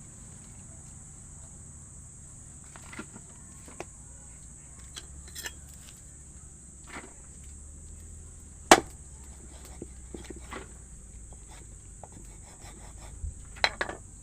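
Steady high-pitched insect drone, with scattered clicks and knocks over it, the sharpest about nine seconds in and a few more near the end.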